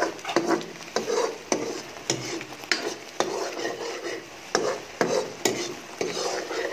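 Steel spoon stirring thick tomato purée in a non-stick wok, scraping and clinking against the pan about twice a second, with the sauce sizzling as it cooks.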